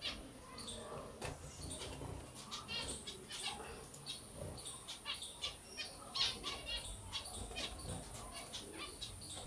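Caged pet finches chirping in short, high calls and fluttering their wings, with light clicks scattered throughout.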